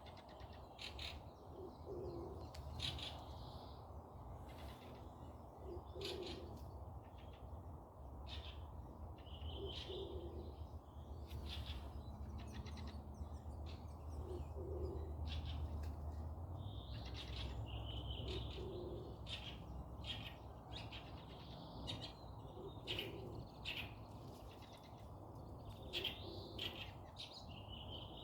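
Forest birds calling: a low call repeats every two to four seconds, mixed with higher chirps and short sharp notes, over a steady low background rumble.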